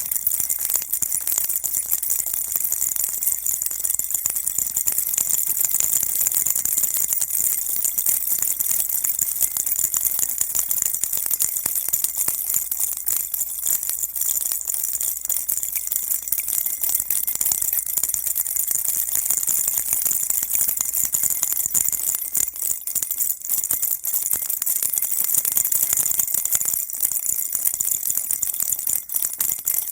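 Baby rattle shaken continuously, a dense steady jingling and clicking of small beads or bells with no pauses.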